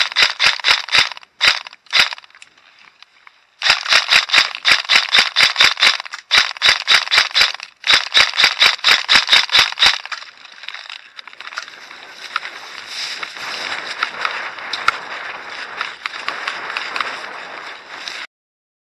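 Airsoft guns firing strings of rapid, evenly spaced shots: a few short bursts, then a long burst of several seconds. After that comes a steadier noisy crackle, which cuts off suddenly near the end.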